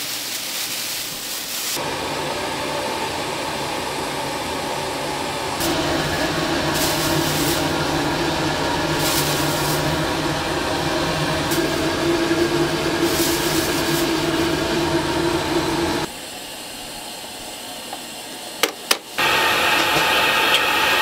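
A motor-driven machine running steadily with a loud hum, changing abruptly in level a few times, with two sharp clicks near the end.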